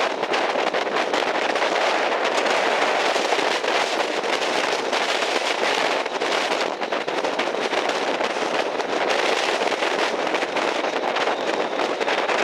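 Strong onshore wind and surf making a steady rushing noise, crackling as gusts hit the microphone.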